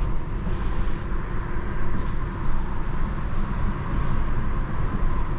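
Cabin sound of a Citroën C5 Aircross 1.2 hybrid driving on electric power alone with the petrol engine off: a steady low road and tyre rumble with a faint, steady high whine above it.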